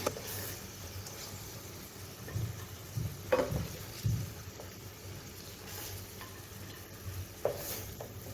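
Chicken pieces sizzling as they shallow-fry in hot oil, with a few short knocks in the pan about three to four seconds in and again near the end.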